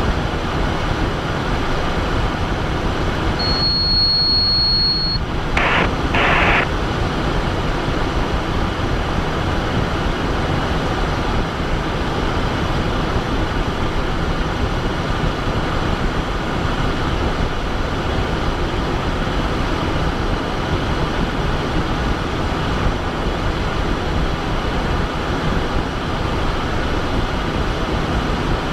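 Steady in-flight cockpit noise of a Cessna Citation Bravo: airflow and its twin Pratt & Whitney PW530A turbofans, a constant rushing hum. About four seconds in a high steady beep sounds for a second or so, followed by two short bursts of noise.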